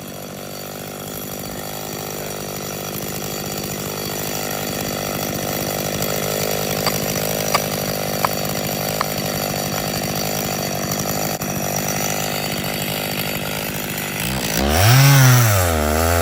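Chainsaw running steadily through a tree-felling cut. Four sharp taps come about a second apart partway through, like felling wedges being tapped in. Near the end the saw revs up hard, then drops back down.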